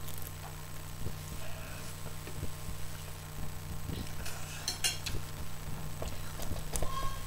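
A fork clicking and clinking against a plate while noodles are being eaten, with a brief cluster of sharper sounds about four to five seconds in, over the steady hum of an electric fan.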